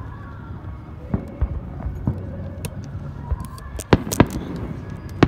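Aerial fireworks shells bursting: scattered sharp bangs, the two loudest close together about four seconds in.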